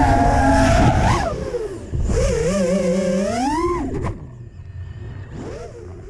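FPV quadcopter's brushless motors (eMax LS) whining, the pitch rising and falling with the throttle. The sound drops sharply about four seconds in, leaving a fainter wavering whine.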